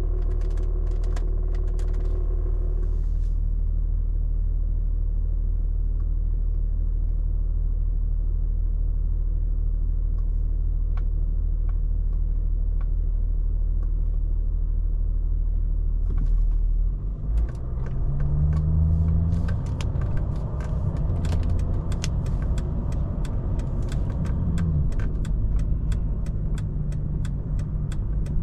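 Cabin sound of a Mercedes-Benz S320 CDI's 3.0-litre V6 diesel and the road under way: a steady low rumble at cruise. About two-thirds of the way in, the car accelerates and the engine note rises and falls through the gears, joined by a quick run of small rattling clicks.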